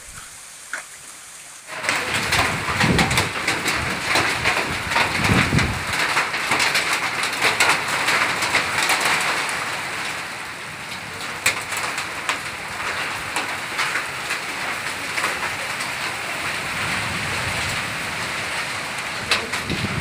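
Hailstorm with heavy rain pelting down: a dense hiss full of sharp hits from hailstones striking. It starts abruptly about two seconds in, is heaviest for the next several seconds, then eases slightly.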